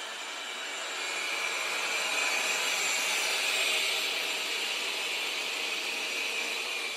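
Vacuum motor running with a steady whir and a high whine, growing louder about a second in and easing near the end.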